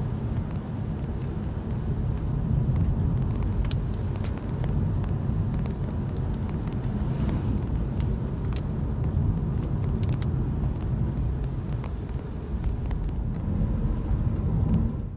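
Steady low rumble of a car driving on a wet road, heard from inside the cabin, with scattered faint clicks.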